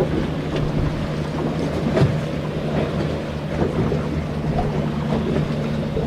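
Boat engine running steadily with a low, even hum, and a few light knocks, the loudest about two seconds in.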